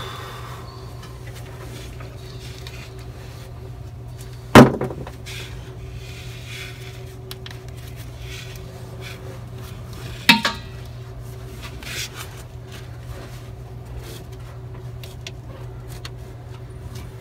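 Metal clanks of hand tools and parts knocking against the steel frame and airbag mounting plate: a sharp loud clank about four and a half seconds in, another about ten seconds in and a lighter one near twelve seconds, over a steady low hum.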